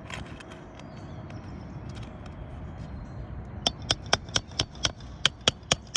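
Hammer striking metal in quick succession on a roof, about ten sharp blows at roughly four a second, starting about three and a half seconds in. The blows come while nails are being worked out from under asphalt shingles.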